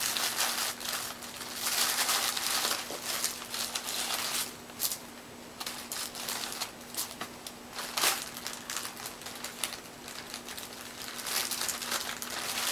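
Plastic bag crinkling and rustling as power-supply cables and accessories are packed back into it, in irregular bursts.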